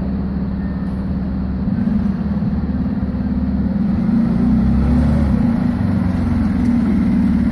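Fire engine's diesel engine running at low speed as the rig maneuvers slowly, a steady low drone that grows a little louder about four seconds in as it swings close.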